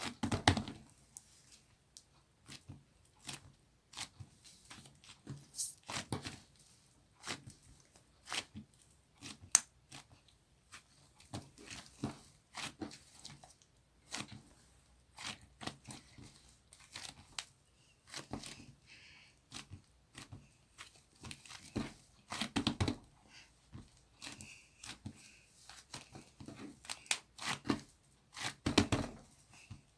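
Soft lightweight angel clay being pulled apart and squeezed by hand close to the microphone: an irregular run of soft tearing and crackling noises, with louder handfuls near the start, about three-quarters through and near the end.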